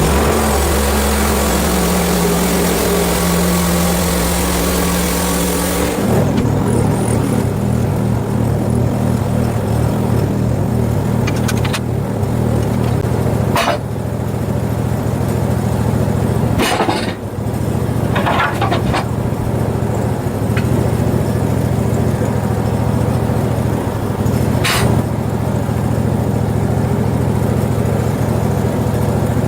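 Portable bandsaw mill's small gasoline engine running steadily. For about the first six seconds a loud hiss rides over it, which then stops. A few short, sharp clanks come later.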